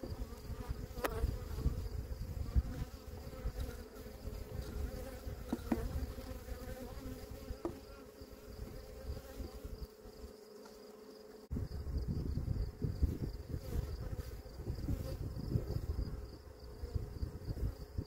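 Honeybees buzzing around an open hive, a steady hum, with a few light wooden knocks as a new frame is handled and lowered in among the others.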